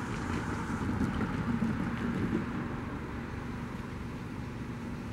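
Steady low rumble with wind on the microphone and a faint steady hum, a little louder in the first couple of seconds; no distinct events.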